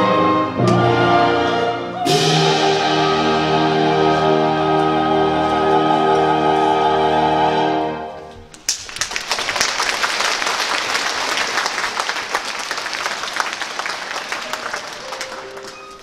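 Orchestral music with long held chords that ends about eight seconds in, followed by audience applause that slowly fades.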